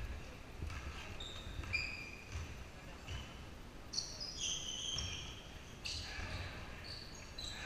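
Basketball game on a hardwood gym floor: sneakers give a string of short, high squeaks, busiest about four to five seconds in, over the low thuds of the ball being dribbled and players running.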